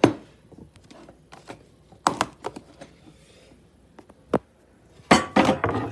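Stacked bowls being handled and pushed into a kitchen cabinet, knocking and clattering against each other and the shelf: a sharp knock at the start, a few scattered knocks, then a quick run of clatters near the end.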